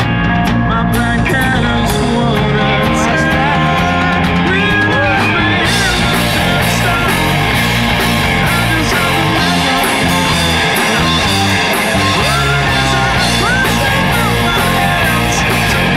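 Live rock band playing through a PA, recorded on a mobile phone: drums, electric and acoustic guitars and bass, with a man singing. A little over five seconds in, the sound turns brighter and fuller as the band plays harder.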